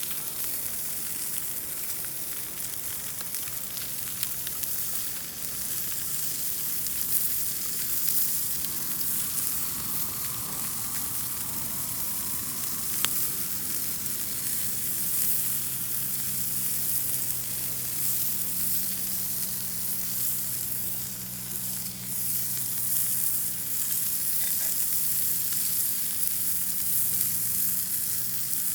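Pork-belly meat rolls sizzling steadily as they fry in a pan over a campfire, with one sharp click about halfway through.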